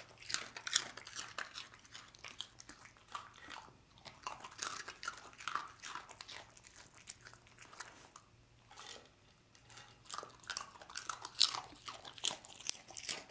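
A dog crunching and chewing hard, dry pasta snack pieces: a fast, irregular run of crisp crunches, with a short lull about eight seconds in.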